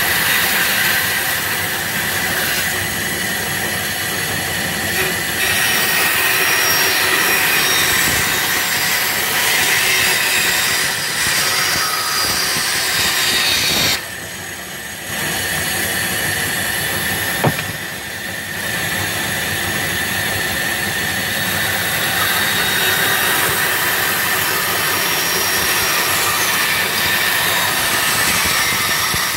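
Bandsaw running and cutting wood as pieces are fed through the blade: a steady high whine over a loud rushing noise. It goes briefly quieter about halfway through, with one sharp tick a few seconds later.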